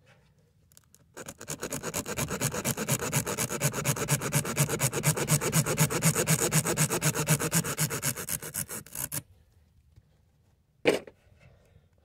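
Tire reamer (rasp tool from a plug kit) worked rapidly in and out of a puncture in a tire, a fast, even, rhythmic rubbing rasp that starts about a second in and stops after about eight seconds. A single short knock comes near the end.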